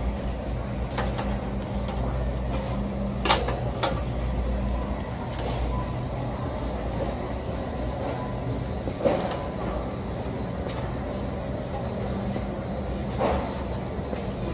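Metal shopping cart rolling across a store floor: a steady low rumble from the wheels with a handful of sharp rattling clanks from the loaded wire basket, the loudest about three seconds in.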